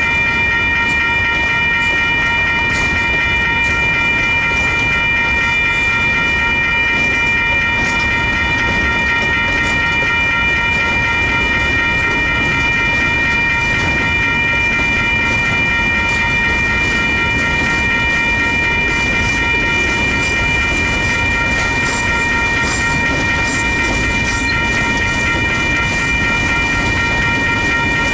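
Freight train's boxcars rolling through a grade crossing: a steady rumble with the clicking of wheels over the rail joints. The crossing's warning bell rings steadily over it.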